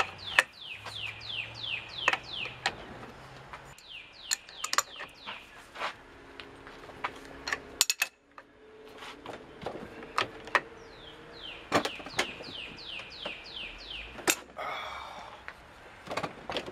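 Sharp metallic clicks and knocks of an adjustable wrench on the crankshaft nut of a seized 1969 Triumph T150 Trident three-cylinder engine as it is forced against an engine that will not turn. Behind it a bird sings bouts of quick, falling chirps, four or five a second.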